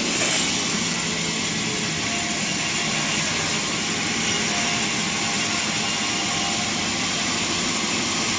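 Sawmill machinery running steadily with a loud, even noise and a faint hum, briefly louder right at the start.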